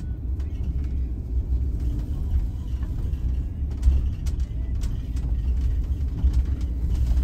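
Converted Ram ProMaster camper van driving slowly on a gravel road, heard from inside the cab: a steady low rumble of engine and tyres, with a few short ticks and rattles around the middle.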